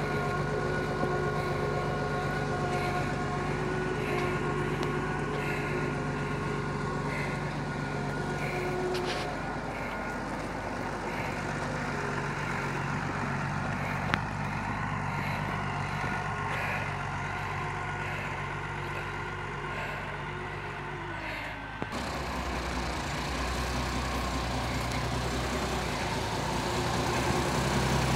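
Massey Ferguson 2620 tractor's diesel engine running steadily while pulling a seedbed cultivator. About three-quarters of the way in, the sound changes abruptly to the engine heard close up and idling.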